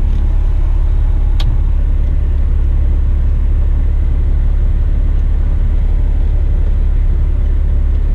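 Heavy rigid truck's diesel engine running steadily at low revs, a constant low rumble heard from inside the cab, with a single sharp click about a second and a half in.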